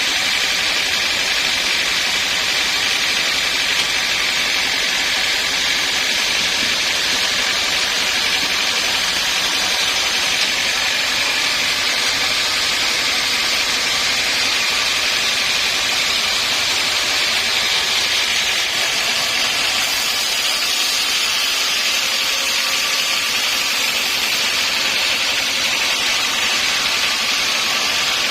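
Sawmill machinery running steadily, a loud even hiss with a thin steady whine through it and no pauses or changes.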